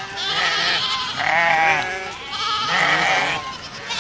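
A herd of goats bleating, several wavering calls overlapping, with two louder bleats about one and a half and three seconds in.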